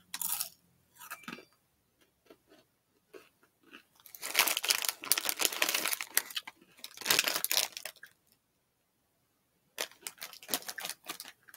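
Crinkly snack bag rustling and crunching in two stretches of bursts, the longer one about four seconds in and a shorter one near the end, as a hand goes into the chip bag.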